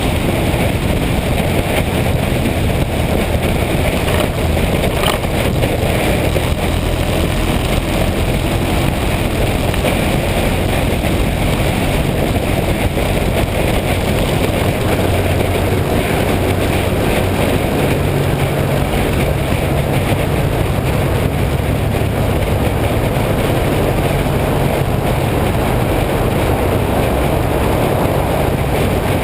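Motorcycle riding along at a steady speed: a constant engine drone under an even rush of road and wind noise.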